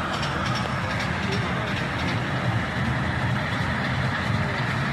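Small ride-on toy train running with a steady rumble, with voices mixed in.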